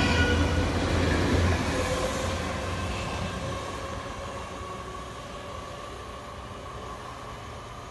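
South Western Railway electric multiple-unit train running on the line with a low hum and whining traction motors. It is loud at first, then fades steadily as the train draws away.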